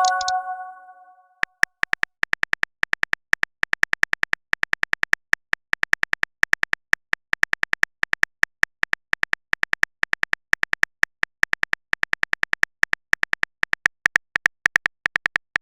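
Synthetic keyboard-typing clicks of a texting-story app, short sharp ticks coming several a second in quick irregular runs, as a message is typed out. It opens with a brief chime of a few ringing tones.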